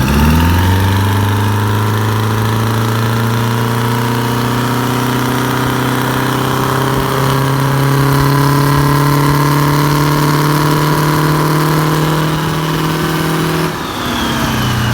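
IH 1600 truck engine revved up at the start and held at a high, steady speed for about thirteen seconds, then dropping back to idle near the end.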